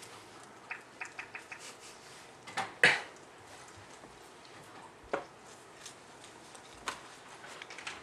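Scattered clicks and knocks of things being handled, with a quick run of light ticks early on and a louder clatter a little under three seconds in.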